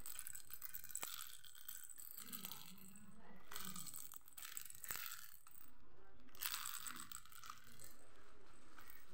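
Faint clicking and rattling of a plastic push-along baby toy with wheels and beads being handled, with a few separate sharp clicks.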